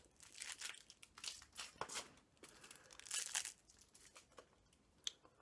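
Plastic candy wrapper crinkling and tearing in the hands in irregular bursts, dying down after about three and a half seconds, with one sharp click near the end.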